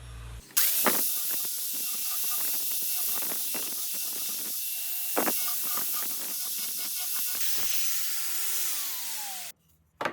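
Steady loud hiss of a spray or air jet. It starts about half a second in, with scattered clicks through it, and a tone falls in pitch shortly before the hiss cuts off suddenly near the end. A single click follows.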